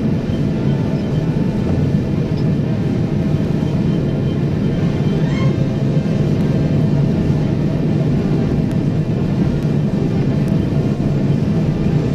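Loud, steady, low roar of a burning oil-well blowout, with the gas fire jetting up through the drilling derrick.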